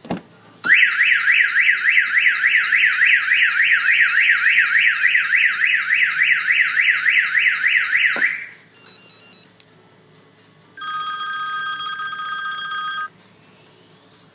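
Car alarm siren warbling rapidly up and down, about three to four sweeps a second, for about seven and a half seconds, then cutting off. A few seconds later a steady electronic tone sounds for about two seconds.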